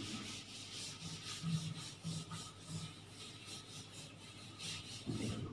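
Board duster rubbing across a chalkboard, a run of quick back-and-forth wiping strokes as chalk writing is erased.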